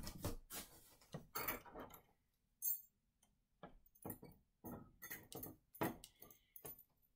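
Faint, irregular clicks and clinks of a small metal chain puzzle being handled on the cardboard floor of a box, with light rustling of the cardboard.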